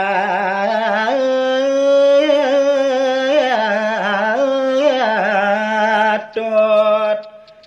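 A man singing a verse of Balinese gaguritan in the traditional pupuh style, solo, in a long melismatic line with wavering, ornamented held notes. The voice breaks briefly about six seconds in, then the phrase ends near the end.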